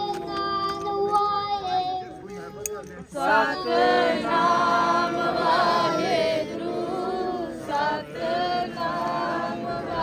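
A group of voices chanting together in unison, swelling into a loud, drawn-out group call about three seconds in.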